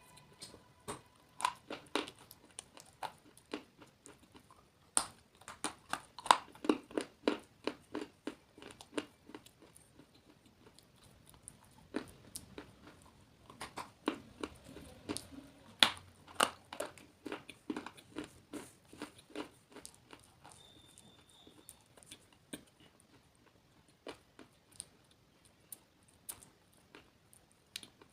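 Close-miked biting and chewing of dry, crunchy edible clay: a dense run of sharp, irregular crunches that thins out to sparse ones near the end.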